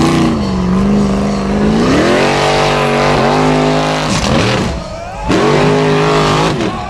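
Formula Offroad buggy's engine revving hard as it climbs a loose sand slope with its wheels spinning, the pitch rising and falling with the throttle. The revs drop off briefly about four to five seconds in, then climb again.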